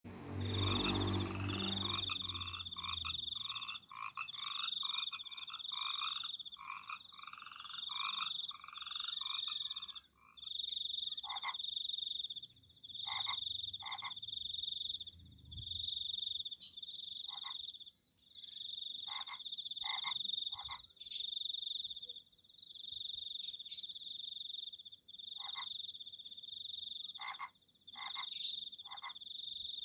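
Frogs calling at night: a high trilling call repeating in bursts of about a second, with short, lower croaks over it and a fast run of pulsed calls in the first ten seconds. A brief low rumble at the very start.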